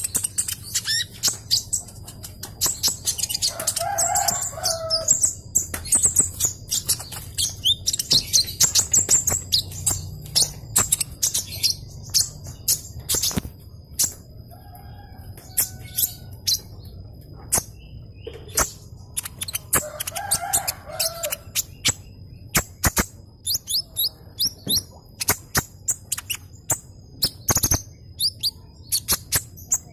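A caged male Van Hasselt's sunbird (kolibri ninja) sings in rapid, high-pitched chirps and twitters, mixed with many short clicks. A rooster crows twice in the background.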